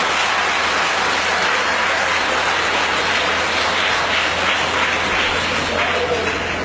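Audience applauding steadily, the clapping cutting off suddenly at the very end.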